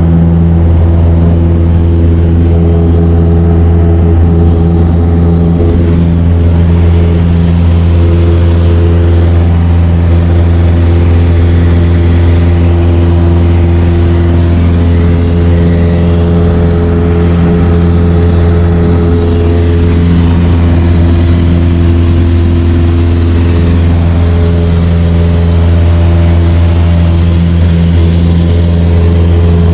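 A light aircraft's piston engine and propeller running at takeoff power: a loud, steady, deep drone with evenly spaced engine tones that hold constant.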